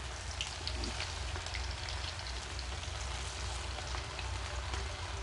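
Chicken pieces deep-frying in hot oil on a low-to-medium flame: a steady sizzle with scattered small pops and crackles.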